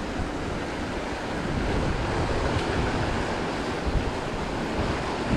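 Wind buffeting the microphone over a steady rush of stream water.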